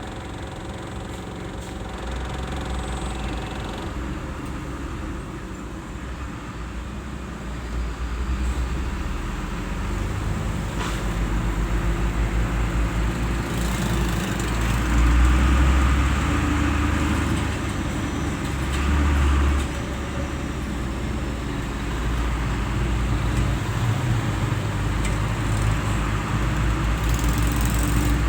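Road traffic in a jam: vehicle engines running at low speed in a continuous low rumble that grows heavier through the middle, swelling loudest about halfway through and again a few seconds later.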